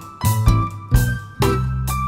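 Background music with a steady beat and keyboard-like pitched notes.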